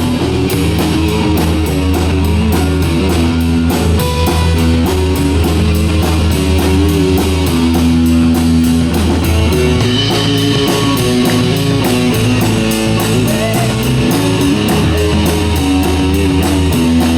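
A rock band playing an instrumental break: electric guitar lines over bass and a steady drum beat, with no singing.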